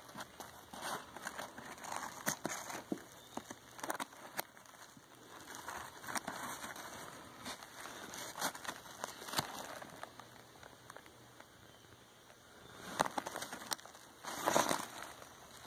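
Nylon backpack being handled: the fabric rustles and crinkles, with scattered small clicks from its zipper pulls and hardware, and two louder rustles near the end.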